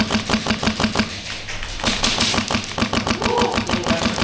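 Rapid full-auto airsoft fire: an even clatter of about eight or nine shots a second that thins out for a moment just after a second in, then carries on.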